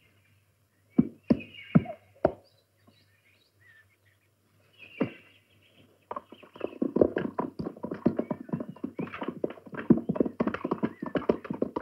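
A few single thuds, then from about six seconds in a dense, rapid clatter of many horses' hooves and carriage wheels as several horse-drawn carriages come along a dirt road.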